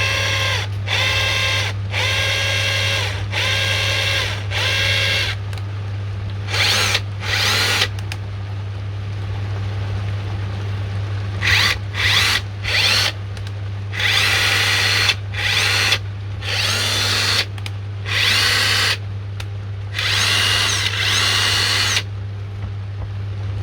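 Parkside cordless impact wrench run free with no load in a series of short trigger bursts, its motor whine spinning up and winding down each time. It runs without the grinding noise, its gearbox freshly greased. A steady low hum lies underneath.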